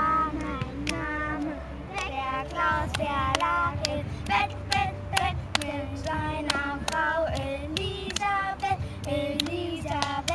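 Girls singing a clapping-game rhyme while clapping hands together, with sharp hand claps landing in a steady rhythm under the sung tune.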